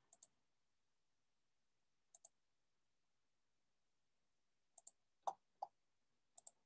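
Near silence broken by a few faint computer mouse clicks, most of them a quick double tick of press and release, with two somewhat louder clicks a little past five seconds in.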